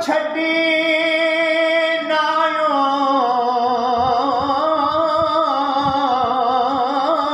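Background music: a singing voice holding long, drawn-out notes with a wavering vibrato.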